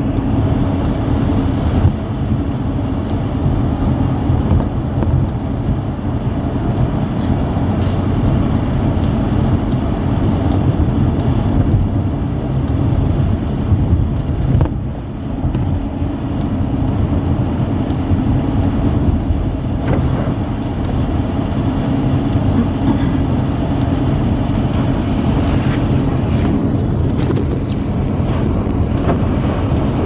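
Car cabin noise while driving on a wet, snowy highway: a steady low rumble of engine and tyres on the wet road, with a few ticks near the end.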